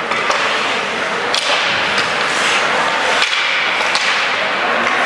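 Ice hockey play: skate blades scraping and hissing on the ice, with a few sharp clacks of hockey sticks hitting the puck and ice.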